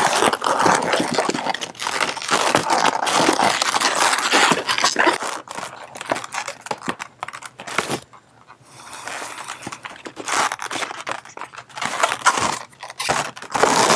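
Inflated latex twisting balloons handled and twisted as two tails are tied together: a dense run of rubs and small clicks of rubber against rubber and fingers, easing off briefly about eight seconds in before starting again.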